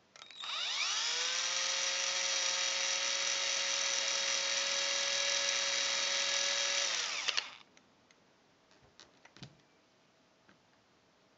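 Cordless drill motor whining as it spins up about half a second in, rising in pitch, then running steadily for about seven seconds with a 4.5 mm bit boring through the centre of a sprayer's pump piston, before winding down. A few light clicks of handling follow.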